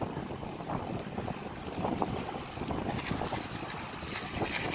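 Wind buffeting the microphone of a moving bicycle, with the rumble of its tyres on an asphalt path as the bike coasts along without braking. A brighter hiss comes up near the end.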